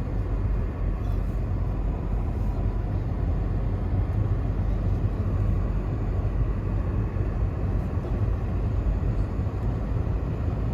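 Car driving along, a steady low road-and-engine rumble.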